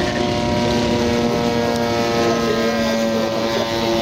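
Propeller engine of a large radio-controlled model aircraft droning steadily in flight, holding a nearly constant pitch.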